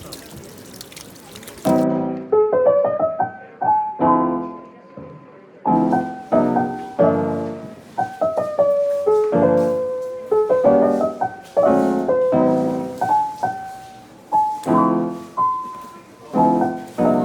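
Background piano music, struck notes in a gentle, steady rhythm, starting about two seconds in after a brief faint outdoor hiss.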